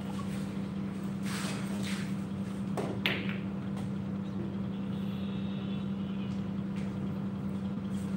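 Pool balls being struck: one sharp click with a brief ring about three seconds in, over a steady low hum.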